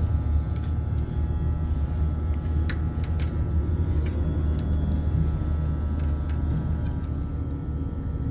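Air-conditioning condensing unit running with a steady low hum and rumble from its condenser fan motor, with a few light clicks a few seconds in.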